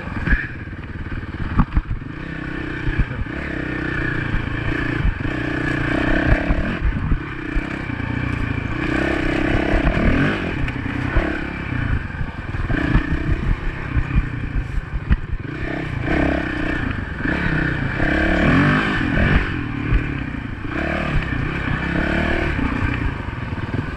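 Honda dirt bike engine running under a trail ride, its pitch rising and falling every second or two as the throttle is worked, with rattles and knocks from the bike over rough ground.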